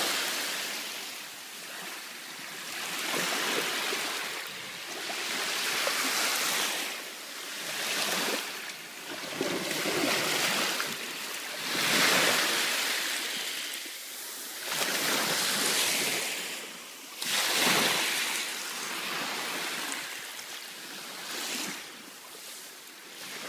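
Small sea waves breaking and washing up a sandy shore, a hiss that swells and falls back every two to three seconds.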